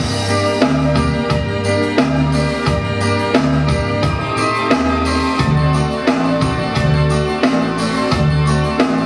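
Instrumental break of a song's backing track: keyboard chords over a steady bass line and drum beat.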